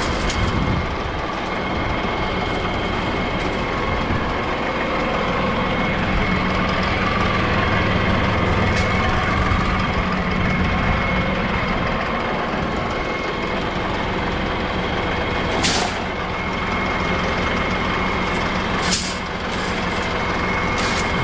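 Motor vehicle engine running steadily under way, with a few short knocks about three quarters of the way through and near the end.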